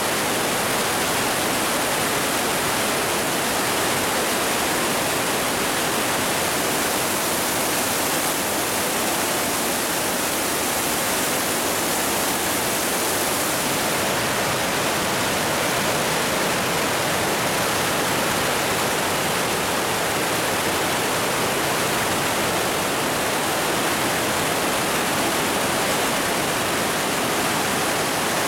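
Steady rush of water in a narrow rock gorge: the Partnach river, swollen and churning after a rainstorm, with waterfalls and spray pouring down the gorge walls. The tone shifts slightly about halfway through.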